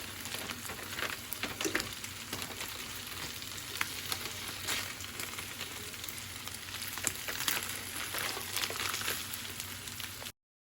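Carne asada steak sizzling as it fries, a steady hiss with frequent small crackles and pops; it cuts off abruptly near the end.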